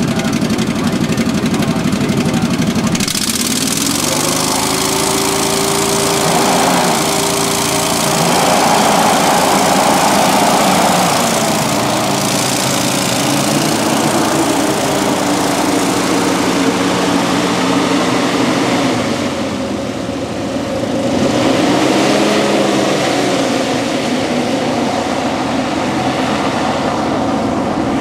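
Rescue hovercraft's engine and fans running loud with a steady rush of air. The engine pitch rises and falls several times as it revs, and the craft moves off across the sand and mud.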